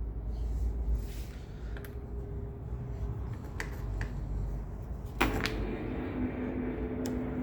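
A few sharp clicks and taps of metal parts being handled, the loudest about five seconds in, over a steady low hum.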